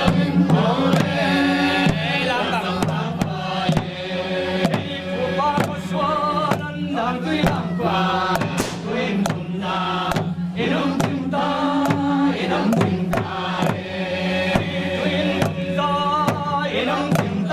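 A group of men chanting a traditional song together in long held phrases, accompanied by frequent hand drum beats and gong strikes.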